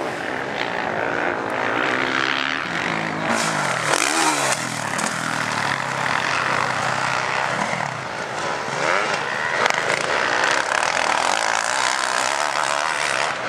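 Motocross bike engines revving hard and easing off over and over, the pitch rising and falling as riders work the throttle through the corners.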